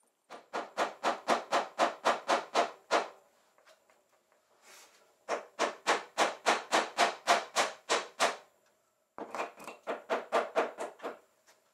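Quick rhythmic rubbing strokes against wood, about five a second, in three runs of two to three seconds with short pauses between.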